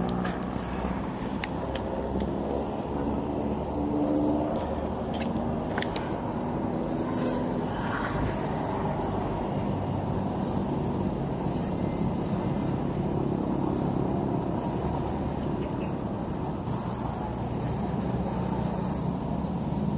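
Steady low rumble of motor engines running, with a pitched hum that shifts now and then.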